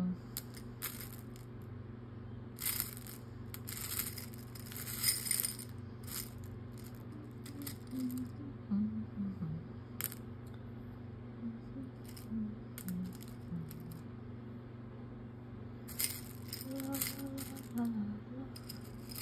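Beads rattling and clinking as they are rummaged through, in several short bursts, with a woman softly humming a tune in between over a steady low background hum.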